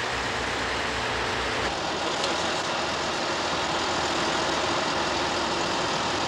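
Heavy truck engine idling. A low throbbing runs for the first couple of seconds, then gives way to a steadier, brighter engine noise after a sudden change.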